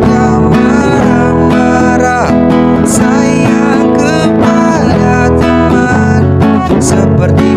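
Acoustic guitar strummed steadily as accompaniment to a man singing a worship song.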